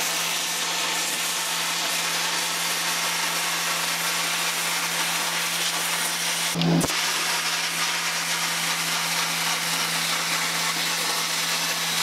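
Hand-held plasma cutter torch cutting diamond plate: a steady hiss of the arc and air jet with a low, even hum underneath, briefly breaking off a little past halfway and then running on.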